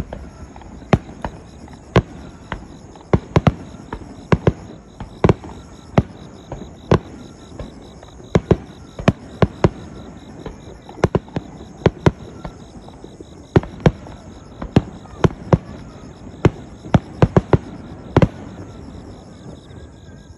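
Aerial firework shells bursting: a run of sharp, irregular bangs, about two a second, some louder than others. Underneath, insects keep up a steady high, pulsing chirping.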